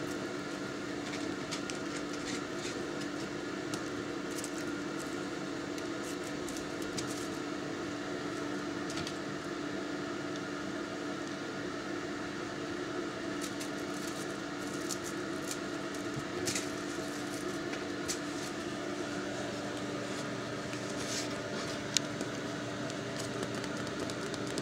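Steady mechanical hum made of one strong low tone and several higher ones, with a scattering of faint clicks and taps and one sharper tap near the end.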